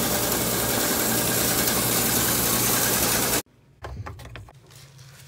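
Electric drain-cleaning machine running steadily, its spinning coiled steel cable feeding into a floor drain, with a low hum under the mechanical noise; it cuts off abruptly about three and a half seconds in. After that, a few faint clicks from pliers working on a sink drain fitting.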